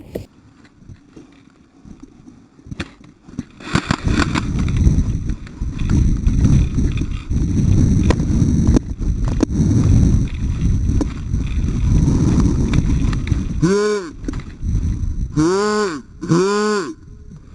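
Wind buffeting the microphone for several seconds, with a few faint sharp clicks, then three short shouted calls near the end.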